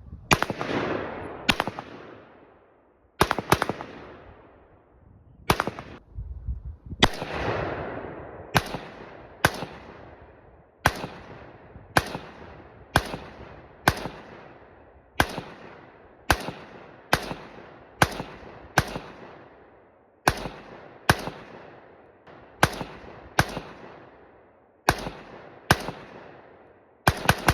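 Semi-automatic rifle fire: about two dozen single shots at a steady pace of roughly one a second, some in quicker pairs, each followed by a trailing echo.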